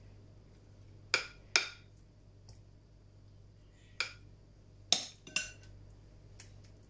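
Metal spoon clinking against a ceramic mixing bowl and a glass baking dish while spinach and ricotta mix is scooped and spread: five sharp clinks, each with a short ring. Two come just over a second in and three between about four and five and a half seconds.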